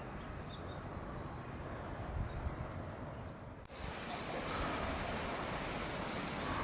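Outdoor background noise with wind rumbling on the microphone. About halfway through, the background changes abruptly, and three short high bird chirps follow in quick succession.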